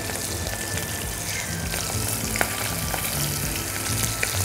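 Flour-coated prawn heads sizzling as they deep-fry in hot oil in a small saucepan, a steady hiss with a few sharp pops.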